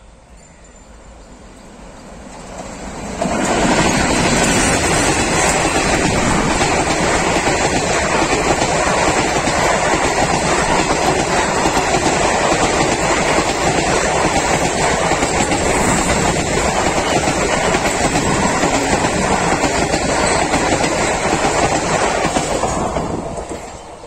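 Passenger train hauled by twin Alco WDM3D diesel locomotives passing close at speed. It builds as it approaches and turns suddenly loud about three seconds in. A long steady clatter of coach wheels over the rails follows, then the sound falls away near the end.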